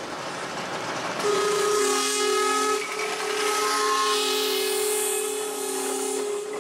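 Miniature-railway steam locomotive's whistle blown twice, a short blast then a longer one, over the hiss of escaping steam.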